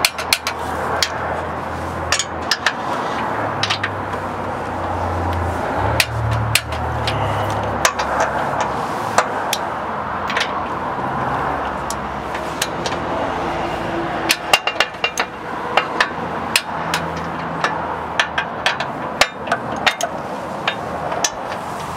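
Irregular sharp metal clicks and clinks from a torque wrench and a second wrench on the steering bell crank's mounting bolts as their torque is checked, over steady background noise.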